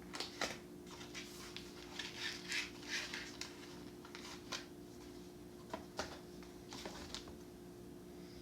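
Rustling and scraping handling noises of a wig being fitted and adjusted, with a few light clicks, busiest in the first half and again near the end, over a steady faint hum.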